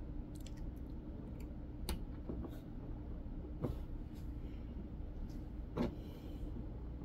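Plastic LEGO bricks handled and pressed together, giving a few sharp clicks about two seconds apart over a steady low hum.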